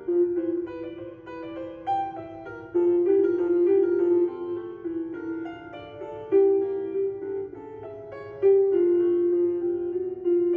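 Background piano music: a slow melody of single notes over soft chords, each note struck and left to fade.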